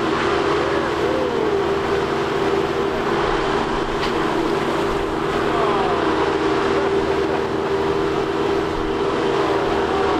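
A boat's motor running at a steady speed, giving a constant drone.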